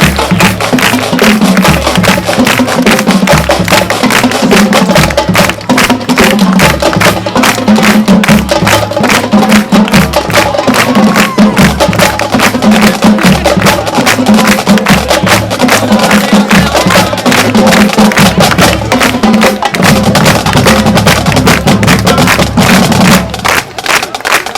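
Marching band playing loudly, its drumline beating rapid, busy percussion over repeated low sustained notes.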